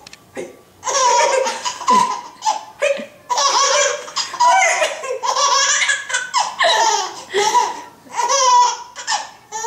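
High-pitched laughter in a run of bursts about a second long with short breaks between them.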